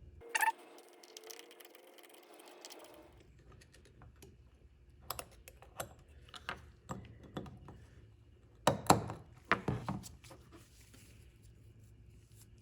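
Small steel parts of a ratchet being handled and fitted during reassembly: scattered light clicks and taps, with a sharp click near the start and a louder run of clicks about nine seconds in.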